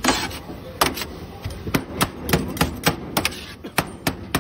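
Chicken shawarma being chopped with metal blades on a steel griddle: sharp, uneven metal-on-metal clacks, about two to three a second.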